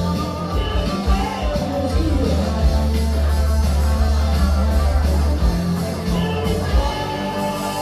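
Live rock band playing with electric guitar and bass, a low bass note held for about three seconds in the middle.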